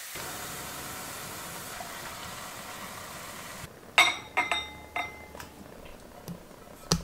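Broccoli and mushrooms sizzling in a hot stainless steel pan for about three and a half seconds, then a quick run of sharp clinks and scrapes as the stir-fry is tipped and scraped out of the pan into a ceramic bowl, with one last clink near the end.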